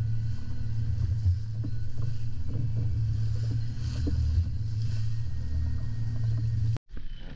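Small fishing boat's engine running steadily at a constant pitch, with wind and water noise over it. The sound cuts off abruptly near the end.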